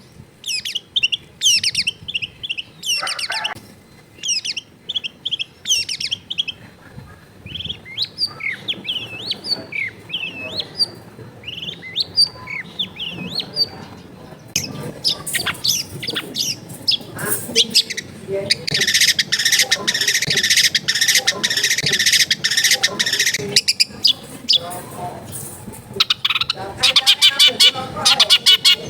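Long-tailed shrike (cendet) singing a varied chattering song of short, sharp chirps and whistles. Past the middle it gives a harsh rasping call lasting about five seconds, and near the end a fast clicking rattle.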